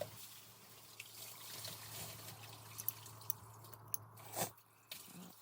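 Faint scattered clicks and taps of small steel parts being handled and fitted into a half-inch ratchet head during reassembly, over a steady hiss, with one louder scrape about four seconds in.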